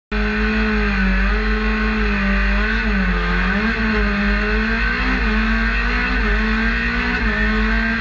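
Methane-fuelled Peugeot 208 race car engine running at fairly steady revs, heard from inside the stripped cockpit; its pitch wavers slightly up and down without big revving sweeps.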